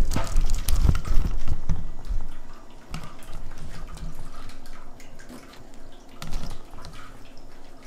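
Handling noise as a camera is grabbed and moved, with heavy low bumps over the first couple of seconds. Then come scattered light clicks and taps as a cat paws at a pen and small objects in a woven rattan tray.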